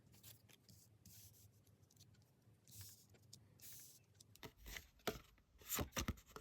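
Tarot cards being handled: faint paper swishes and rustles, then a quick run of sharper card taps and clicks in the last two seconds.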